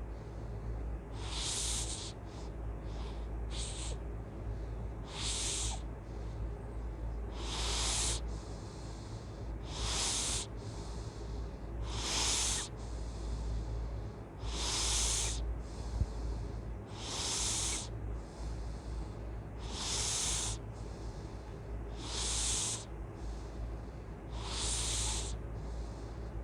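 Loud, hissy snoring breaths, one about every two and a half seconds, from a sleeper breathing heavily.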